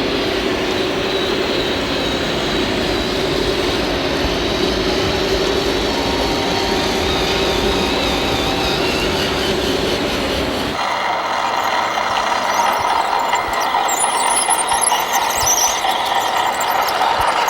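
Electric drive motors, gearing and hydraulic pumps of radio-controlled scale construction machines running. About eleven seconds in the sound changes abruptly to a higher whine with squealing tones.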